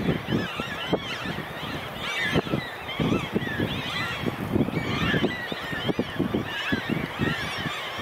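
A large flock of waterbirds calling, with many short calls overlapping continuously, over a rushing low background noise.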